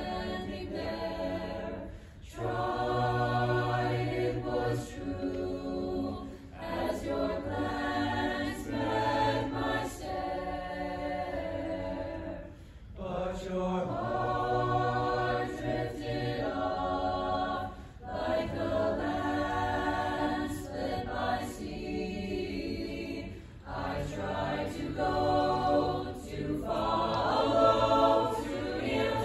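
Mixed choir of young voices singing, in phrases a few seconds long with short breaks between them, swelling loudest near the end.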